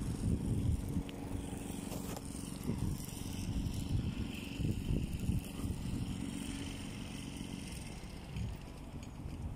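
Outdoor wind rumbling irregularly on the camera microphone, with a faint steady hum underneath that fades out near the end.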